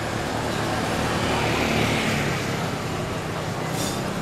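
Road traffic: a motor vehicle passing, its noise swelling and fading about two seconds in, over a steady low hum.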